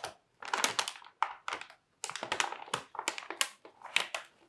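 Motherboard's anti-static plastic bag crinkling in irregular short rustles as it is handled.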